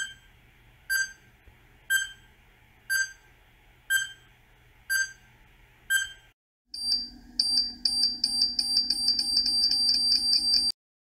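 Countdown timer sound effect: a short beep once a second, seven times, then an alarm-clock ring for about four seconds that cuts off suddenly.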